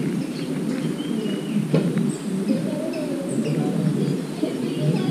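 Birds chirping outdoors, with many short high calls scattered throughout over a steady low background noise.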